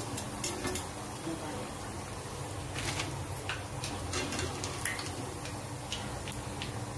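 Hot oil sizzling around lentil vadai (fritters) deep-frying in a pan, with many small sharp crackles and pops scattered throughout.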